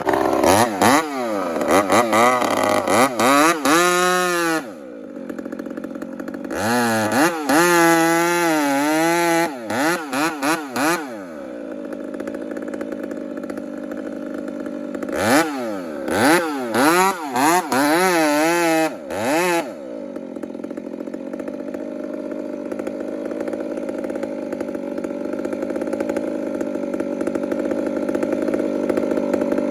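Two-stroke chainsaw revved in rapid throttle blips in three spells, idling in between. From about twenty seconds in it runs steadily at a lower pitch that slowly rises.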